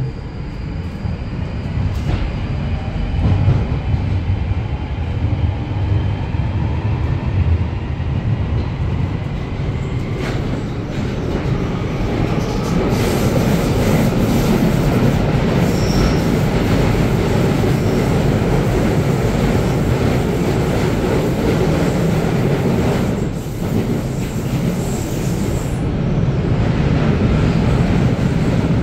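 Northern line Tube train (1995 stock) heard from inside the carriage, pulling away with its traction motors whining up in pitch over the first several seconds. It then runs at speed through the tunnel with a loud, steady rumble, rail clatter and brief wheel squeals.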